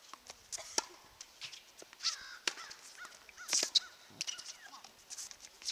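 Scattered sharp knocks, like tennis balls bouncing on the court, with a few short, harsh bird calls about two and three seconds in.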